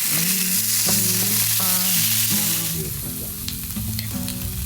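Background song playing in an instrumental stretch between sung lines, with sustained notes and moving melody lines, over a strong steady hiss that eases about three seconds in.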